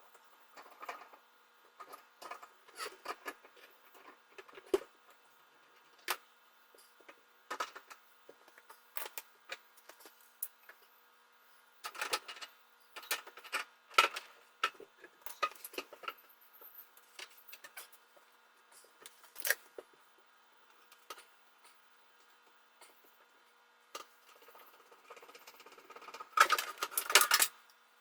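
Objects and tools being handled in a sink cabinet: scattered clicks, knocks and clatters, with a louder burst of rattling and scraping near the end.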